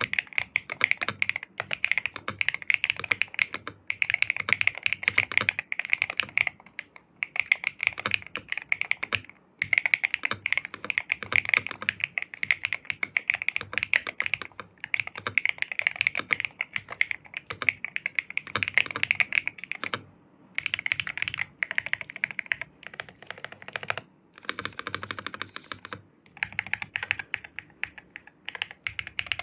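Typing on an Aula Hero68 HE Hall-effect keyboard with pre-lubed Jade King magnetic switches: fast runs of key clicks with brief pauses between them.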